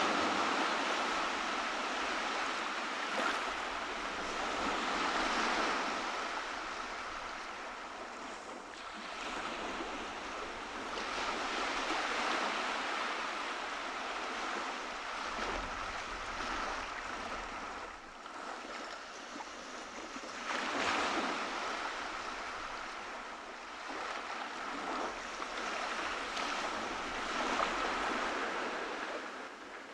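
Ocean surf: waves breaking and washing up a beach, the rush swelling and easing every several seconds.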